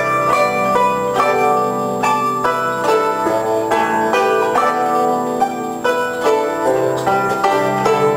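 Instrumental background music of quick plucked-string notes.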